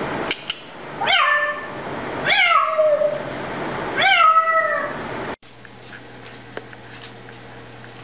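African grey parrot mimicking a cat's meow, three times, each meow sliding down in pitch, after a couple of clicks. The sound cuts off about five seconds in, leaving a faint low hum and light ticks.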